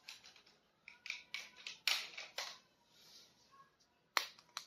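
Handling noise from plastic toy figures and their packaging: a quick run of clicks and rustles, with a short lull in the middle and a sharp click near the end.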